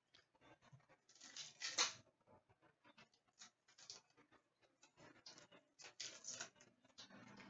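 Hockey trading cards handled by hand: faint rustles, soft scrapes and light clicks as cards are flipped and slid against one another, with short bursts about a second in and again about five to six seconds in.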